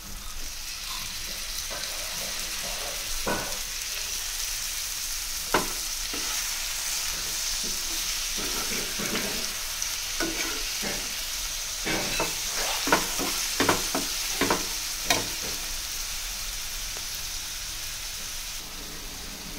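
Marinated chicken frying with onion and tomato in hot oil in a nonstick pan, a steady sizzle. A metal slotted spatula stirring it clicks and scrapes against the pan now and then, most often in the second half.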